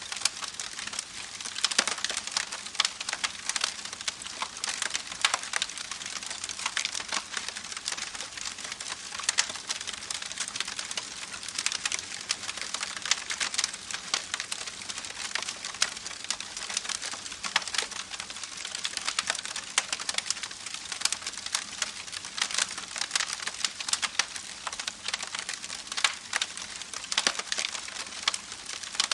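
Campfire crackling, with dense, irregular snaps and pops over a steady watery hiss from a babbling creek.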